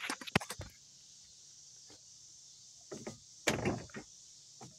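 Handling noise from a phone being moved about: several sharp clicks at the start, then a quiet hiss and a short rustle about three and a half seconds in.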